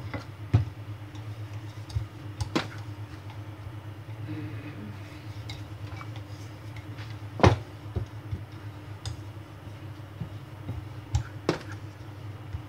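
Wooden rolling pin working pizza dough on a silicone pastry mat: soft rolling with scattered knocks and clicks of the pin and hands on the work surface, the loudest about seven and a half seconds in. A steady low hum runs underneath.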